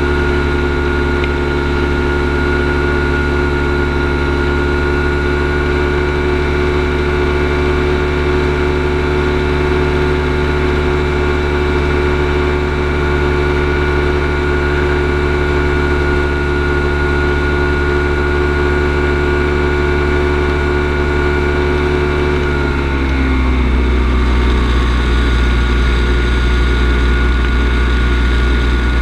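Kolb Firestar II ultralight's engine and propeller droning steadily in flight. About three-quarters of the way through, the pitch slides down to a lower, steady drone.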